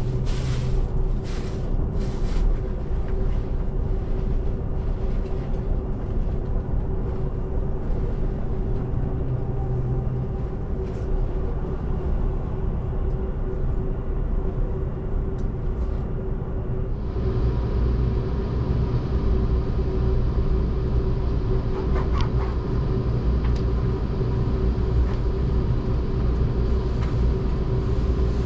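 Running noise heard inside the cabin of a Seibu Laview electric limited express: a steady low rumble of wheels on rail with a constant hum. A few sharp clicks come in the first couple of seconds, and a brighter hiss joins about halfway through.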